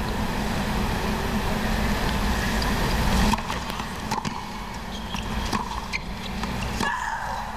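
Stadium crowd cheering and applauding a winner; the noise falls away suddenly about three seconds in. Then a few sharp tennis ball strikes from the next rally, over a steady static hum in the recording.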